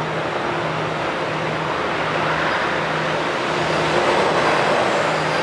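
Steady mechanical noise, a loud hiss over a low hum that keeps cutting in and out, swelling slightly about four seconds in. The filmer believes it is circus machinery running.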